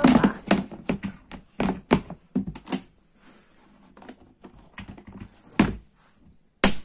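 Clear plastic container lid being pressed down and snapped shut: a quick run of knocks and clicks over the first three seconds, a few sparser ones after, and two loud knocks near the end.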